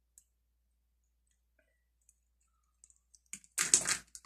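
A few faint clicks of plastic beads being worked off a string, then near the end a loud half-second rattle of beads clattering into a basket.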